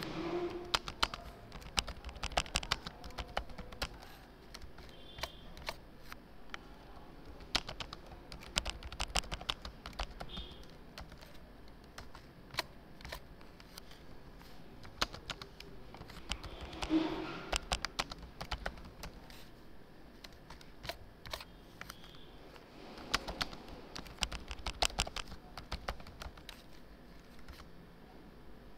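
Computer keyboard typing in several quick bursts of keystrokes, with short pauses between the bursts.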